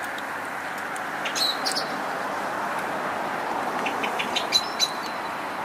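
Steady hum of road traffic going round the roundabout, with two short clusters of high clinks about a second and a half in and again about four seconds in.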